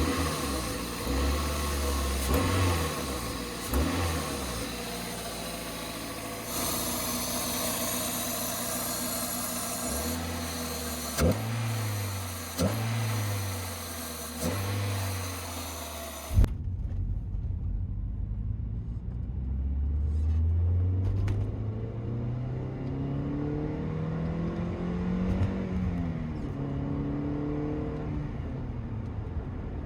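Toyota MR-S's 1.8-litre four-cylinder engine revving in short blips from idle, then, after a cut to a second recording about halfway through, revving up slowly and back down. The two recordings compare the engine's sound with the stock intake and with an aftermarket cold air intake fitted.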